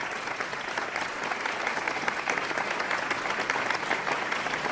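Audience applauding, steady clapping.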